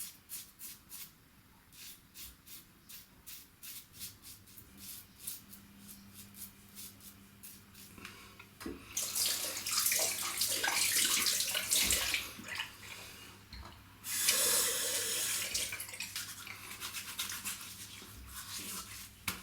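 Safety razor (Merkur 34C with a Wilkinson Sword blade) scraping through oiled stubble in many short, quick strokes. From about nine seconds in, a tap runs for several seconds, then stops briefly and runs again for a couple of seconds.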